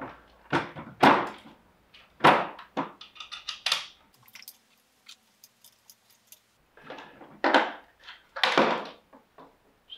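Sako S20 rifle's plastic forend shells being handled and worked loose from the chassis: a series of short plastic knocks, clicks and scrapes, several in the first four seconds and two more near the end, with faint ticks in between.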